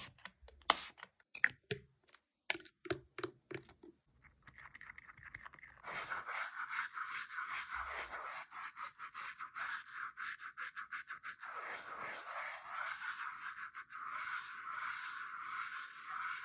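A few sharp taps and clicks, then from about six seconds in a steady run of quick scraping strokes, several a second, across a melon's rind.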